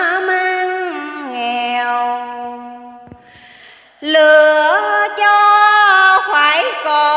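A woman chanting Vietnamese verse in the ngâm style, holding long notes that slide from pitch to pitch. Her voice fades to a brief pause for breath about three seconds in, then the chant resumes strongly.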